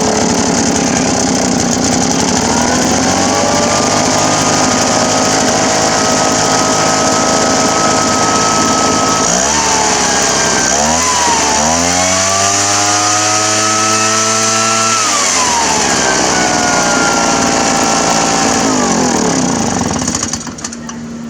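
Poulan Pro PR46BT backpack blower's two-stroke engine running and revving up under throttle several times, holding high revs and dropping back in between, then easing off near the end. It revs cleanly without bogging or dying, now that the loose carburetor mounting screws that let it suck air have been tightened.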